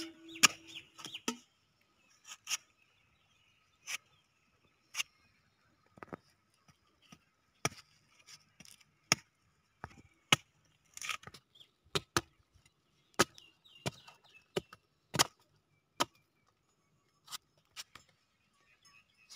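Curved machete chopping into palmyra palm fruits held in the hand, about twenty sharp, separate chops at an uneven pace of roughly one a second, as the tough husk is hacked away to reach the jelly-like ice-apple flesh.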